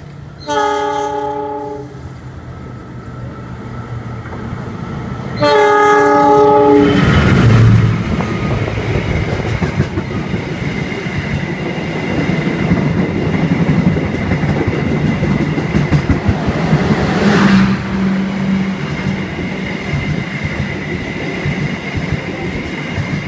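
Two blasts of a multi-tone train horn, each about a second and a half long, as a diesel-hauled passenger train approaches on the adjacent track. Then the locomotive and its stainless-steel coaches pass close by with engine rumble, wheel clatter over the rail joints and a thin steady high whine.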